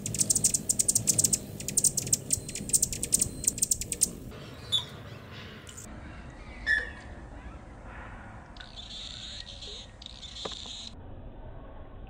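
A hummingbird's rapid, high buzzing rattle of clicks, which the uploader says comes from its vibrating tail feathers. Later the same buzz comes again slowed to half speed, lower in pitch and longer.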